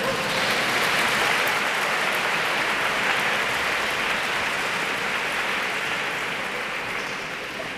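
Audience applauding, starting at once and slowly fading toward the end.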